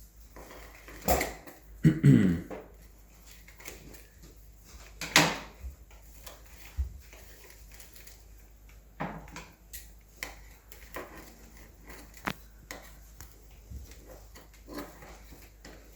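Scissors snipping at hair wound on a vacuum cleaner motorhead's brush roll, with irregular clicks and knocks of the plastic head being handled. The louder knocks come about a second, two seconds and five seconds in.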